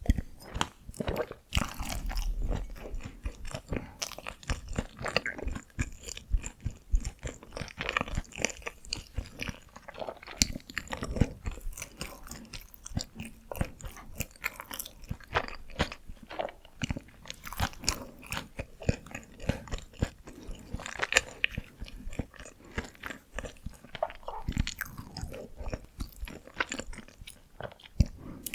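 Close-miked eating of Korean steamed buns (hoppang): steady chewing and biting, made up of many small irregular clicks and smacks.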